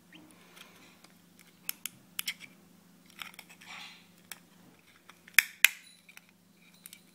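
Hobby knife blade scraping and prying at the circuit board inside a plastic radio transmitter module case, in small scattered clicks and scrapes as the board is cut free; two sharp clicks about five and a half seconds in are the loudest.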